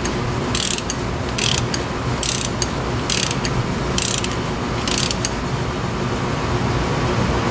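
Socket ratchet worked back and forth on a hub assembly bolt, giving a short burst of clicking on each return stroke, just under once a second. The clicking stops about five seconds in, over a steady low hum.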